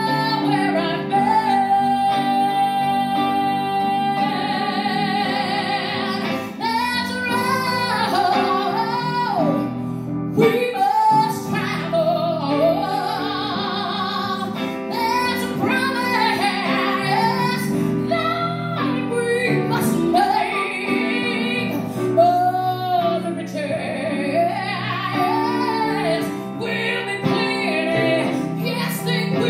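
A woman singing live to electric guitar accompaniment. About a second in she holds one long note with vibrato for some three seconds, then carries on through the melody.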